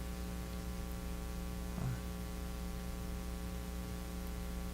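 Steady electrical mains hum with a stack of evenly spaced tones, and a brief faint vocal sound about two seconds in.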